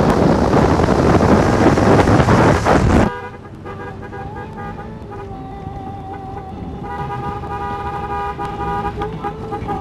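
Wind buffeting the microphone for about three seconds, cut off suddenly. Then the stuck horn of a 1957 VW Beetle sounds on and on in one steady tone, stronger from about seven seconds in: the horn is stuck on from a wiring fault.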